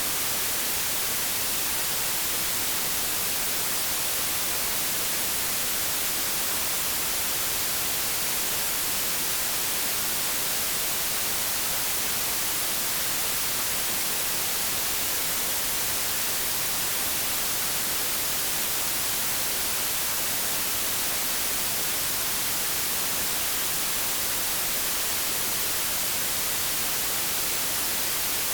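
Steady white-noise static, an even hiss without any change, brighter in the high end, like television or radio static.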